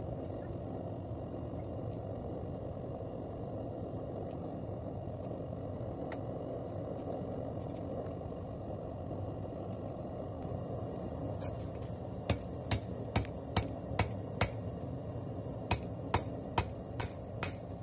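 Hand hammer striking a red-hot layered steel billet on the anvil to set the forge welds. The blows come in two runs of about six and five, two to three a second, starting about twelve seconds in, over a steady low rushing noise.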